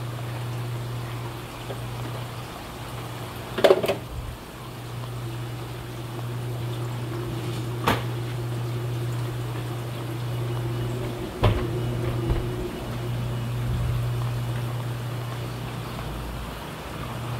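Aquarium water running and splashing over a steady low hum, with three sharp knocks about four seconds apart.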